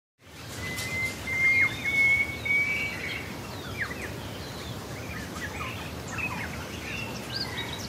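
Woodland ambience: several birds chirping and calling over a low, steady rushing noise. About half a second in, a thin high whistle is held for about two seconds.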